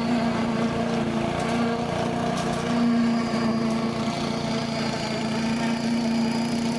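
An engine running steadily at a constant speed, a droning hum with a strong low note that holds through.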